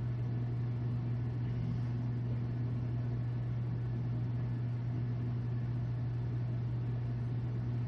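A steady low hum with a faint even hiss, unchanging throughout.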